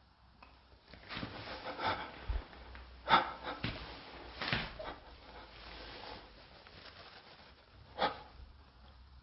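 Soft handling noise with a few short knocks, the sharpest about three seconds in. Near the end comes a click as a hand takes hold of a cabinet's metal door handle.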